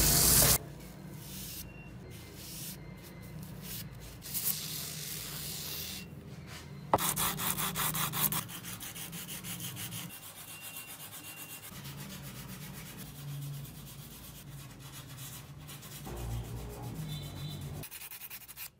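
Sandpaper rubbed by hand over a rusty steel hammer head, a steady scratchy back-and-forth that takes the rust off the metal. About seven seconds in there is a sharp click, followed by a short run of quicker, louder strokes.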